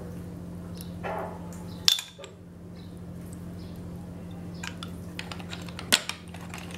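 Snail shells clicking against each other and the ceramic bowl as they are handled: two sharp clicks, about two seconds in and near the end, with light ticks between. A steady low hum sits underneath.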